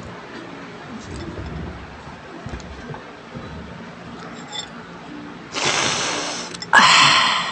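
Quiet chewing and fork-on-plate sounds, then near the end two loud, breathy rushes of noise, the second louder and starting abruptly before fading.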